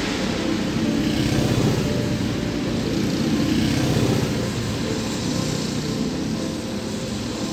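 Vehicle engine and road noise while driving in city traffic, steady throughout and a little louder from about one to four seconds in.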